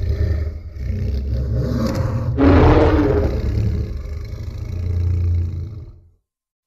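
Designed giant-monster roar for Zilla: a deep rumbling growl that rises into a louder, pitched roar about two and a half seconds in, then fades away about six seconds in.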